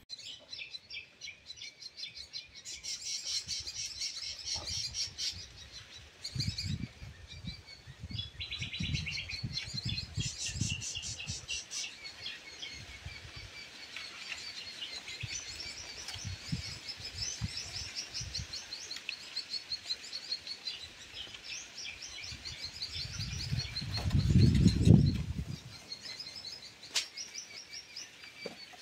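Small birds twittering in fast, high, chirping runs without pause. Gusts of wind buffet the microphone, the strongest about 24 seconds in.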